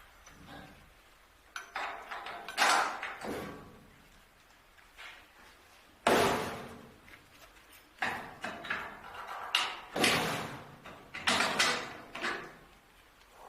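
A series of irregular knocks and clangs, each ringing out briefly, loudest about six seconds in and again around ten seconds in.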